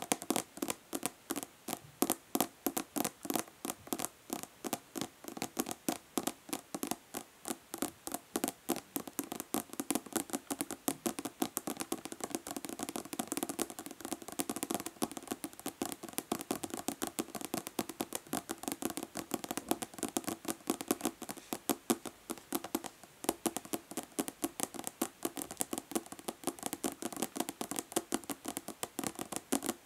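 Natural fingernails tapping fast and hard on a plastic body lotion bottle: a dense, continuous run of sharp clicks, several a second.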